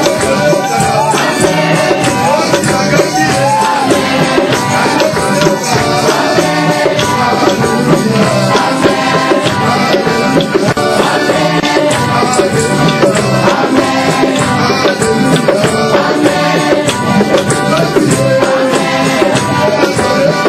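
Live worship music: voices singing over instruments, with a steady, shaking percussion beat.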